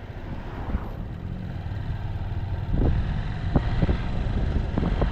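Honda Hornet 160R's single-cylinder engine running on the move, with wind and road noise, getting louder about three seconds in. A few short sharp knocks near the end.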